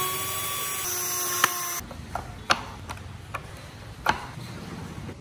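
Cordless drill driving a screw into the wooden truck bed: the motor whines steadily for about two seconds, dropping slightly in pitch about a second in, then stops. After it come a few light clicks and knocks as the wooden parts are handled.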